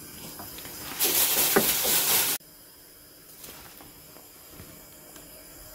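A loud, steady hiss lasting about a second and a half that starts and stops abruptly, followed by a faint steady hum.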